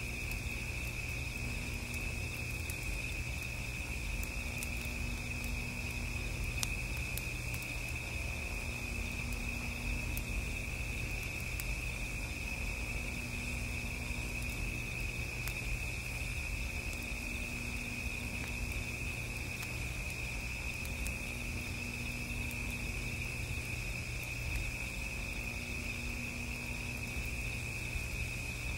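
Crickets trilling in one steady, unbroken high note, over a low rumble.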